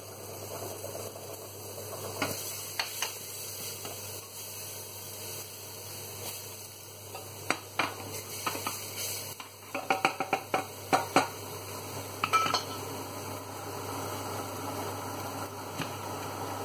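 Kitchen utensils knocking, tapping and scraping against a stainless steel saucepan as minced garlic is scraped from a garlic press and stirred into oil. Clusters of sharp clicks come over a steady low hiss.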